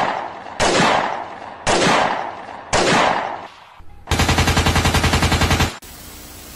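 Gunshot sound effects: four single shots about a second apart, each with a long fading tail, then a rapid machine-gun burst lasting about a second and a half, then a short stretch of steady TV-static hiss.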